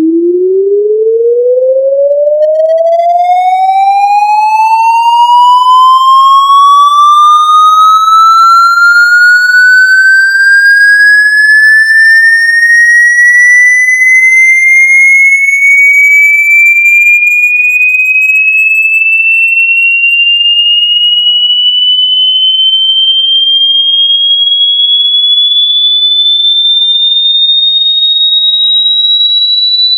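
Loud electronic sine-wave tone sweeping steadily upward in pitch, from a low hum to a high whistle, rising fast at first and then more slowly.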